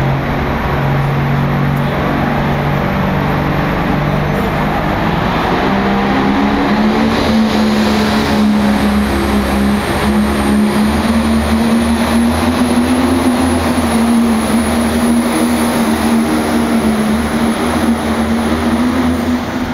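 John Deere pulling tractor's engine running loud under full load down the track, its note stepping up in pitch several seconds in and holding there, with a thin high whine rising over it until near the end.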